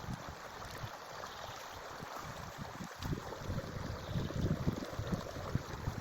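Forest stream flowing steadily, with a low, gusty rumble that grows louder about halfway through.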